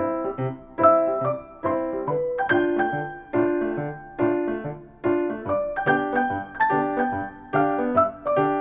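Background piano music: a gentle tune of struck chords over a repeating bass note, each note fading after it is played.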